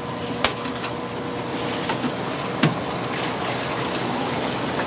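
Steady rush of water from running aquarium pumps and filtration, with a couple of light plastic clicks.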